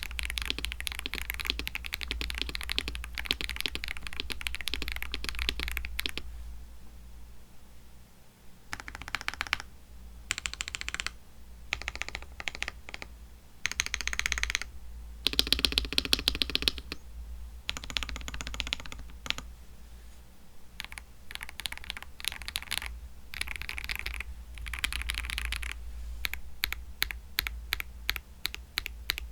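Typing on a mechanical keyboard fitted with Akko CS switches, likely lubed. The fast key clacks come in runs: a long stretch, a pause about six seconds in, several short bursts, then steady typing again for the last eight seconds or so.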